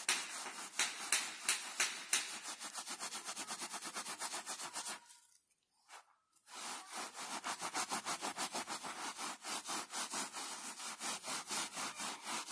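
A cloth rubbed rapidly back and forth over carpet pile, scrubbing out a wet coffee stain. The scrubbing stops for about a second and a half just after the middle, then resumes at the same quick pace.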